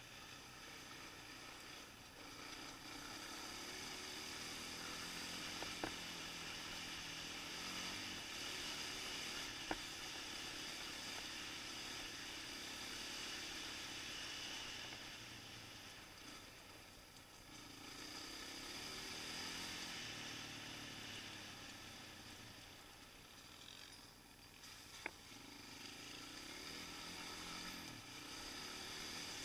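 Suzuki LT-Z400 quad's single-cylinder four-stroke engine revving up and down as it is ridden, over a steady hiss, with three sharp knocks along the way.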